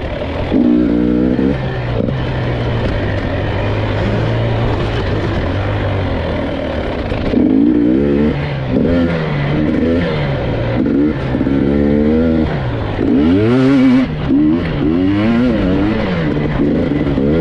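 GasGas EC 300 two-stroke enduro motorcycle engine under way on a trail. It holds a fairly even note for a few seconds, then revs up and down over and over as the throttle is opened and shut.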